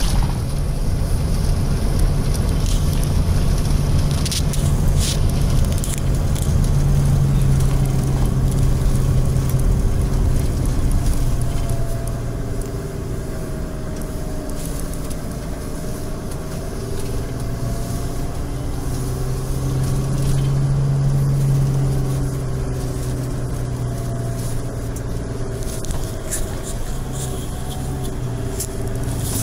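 Hino/Toyota Coaster minibus running down a winding mountain road, heard from inside the cabin. Its engine hum and road noise are steady, swelling a little twice along the way.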